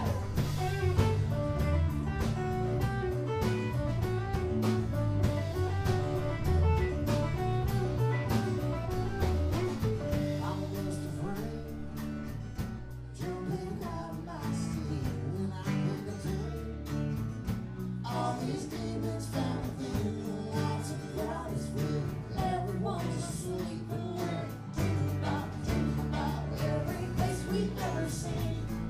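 Live band playing: electric bass, electric guitar and acoustic guitar over drums, with a singer's voice.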